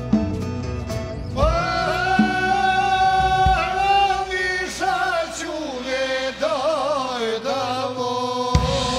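A man sings a folk melody in long held notes that waver with vibrato, backed by an ethno-jazz band. The drum kit plays only briefly at the start and comes back in near the end.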